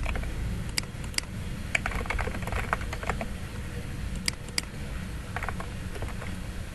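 Typing on a computer keyboard: irregular keystrokes, with a few sharper clicks among them, over a steady low hum.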